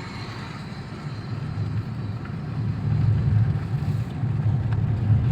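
A vehicle moving along the road: a low, uneven rumble that gets louder over the second half.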